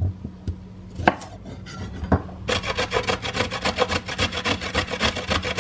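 A chef's knife cutting through a carrot onto a wooden chopping board, a few single knocks, then from about halfway the carrot rubbed quickly up and down a stainless steel box grater in fast, even rasping strokes.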